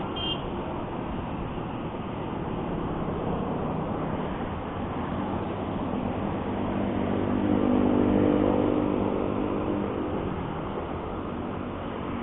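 Motorcycle engine running while riding on a highway, under steady road and wind noise. An engine tone swells about seven seconds in, is loudest near eight seconds, and fades back by about ten.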